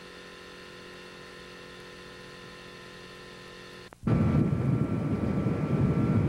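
A steady low hum for about four seconds. Then an abrupt cut to loud, gusty rumbling: wind buffeting a camcorder microphone over open floodwater.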